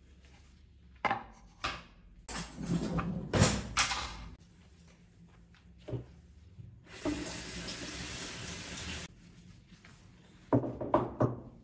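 Kitchen sounds: a few sharp clicks and knocks, a longer noisy stretch about two to four seconds in, then a water tap running steadily for about two seconds past the middle, and a few more knocks near the end.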